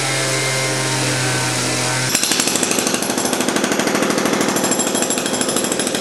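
Gas-powered cut-off saw running steadily as it wet-cuts a concrete deck. About two seconds in it cuts abruptly to a corded jackhammer hammering concrete with fast, even blows.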